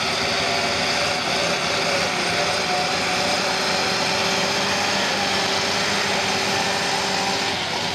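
Tractor diesel engine running steadily under heavy load as it tows an off-road SUV up a grassy slope on a tow strap. The sound drops away just before the end.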